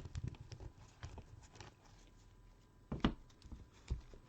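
Trading cards being handled and set down on a table: a string of light taps and knocks, the loudest about three seconds in.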